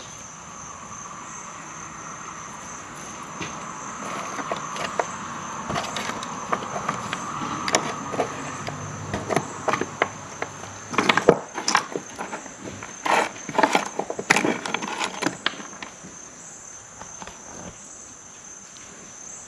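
Buttons, wooden spools and small metal notions clicking and rattling as a hand rummages through a wooden drawer, the clicks coming thickest and loudest about halfway through. A steady high insect chorus runs underneath.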